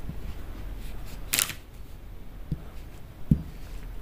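A steel lid being put onto a kadhai of cooking potatoes: one brief scraping clatter about a second and a half in, then a couple of soft knocks, over a low steady hum.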